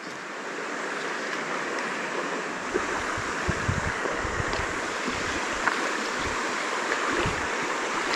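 Shallow stream running over stones, a steady rushing of the riffle. A few low bumps on the microphone come in the middle.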